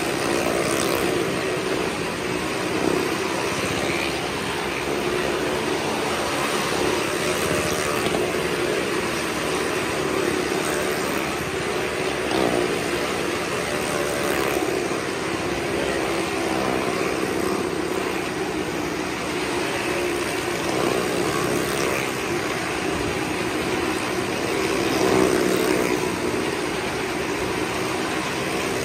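Engines of several cars and motorcycles riding round the vertical wall of a well-of-death pit, overlapping in one continuous drone whose pitch wavers up and down as the vehicles circle past.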